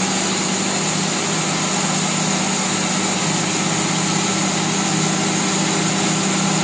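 Band sawmill running steadily, a constant machine hum with no change in load.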